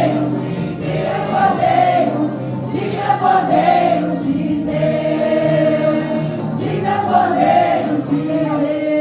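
A church choir singing a gospel worship song in long held notes, phrase after phrase.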